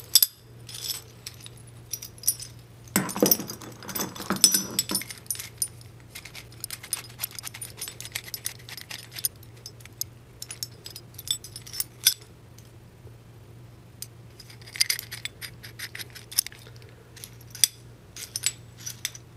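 Steel gear puller parts (jaws, yoke and forcing screw) clinking and jingling as they are handled and turned over in the hands: scattered light metallic clicks, busiest around three to five seconds in and again around fifteen seconds in.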